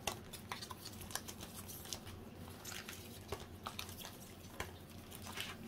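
Foil booster packs being handled and counted: faint crinkling with many small irregular clicks.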